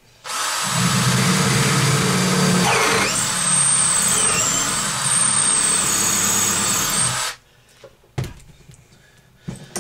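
Power drill running for about seven seconds, boring out a cast brass barbed hose fitting with a 7/32-inch bit to enlarge and smooth its rough inside bore. The motor's whine dips briefly a couple of times as the bit bites. Then it stops, and a few light knocks follow.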